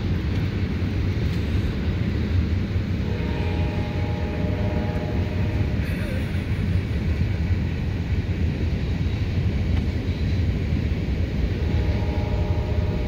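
Train horn sounding a chord of several steady tones, two long blasts: one about three seconds in lasting about three seconds, another starting near the end. Under them is a steady low rumble.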